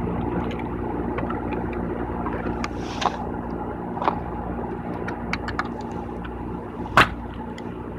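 Steady low mechanical drone with a few fixed hum tones, overlaid by scattered small clicks and taps. The sharpest click comes about seven seconds in.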